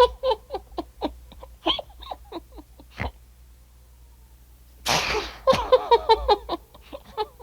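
A cartoon character's vocal sounds: a run of short chuckling sounds, then a loud sneeze about five seconds in, followed by more short chuckles.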